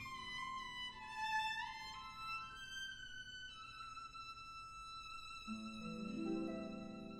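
Background music: a slow violin melody with sliding notes, joined about five and a half seconds in by a held lower note.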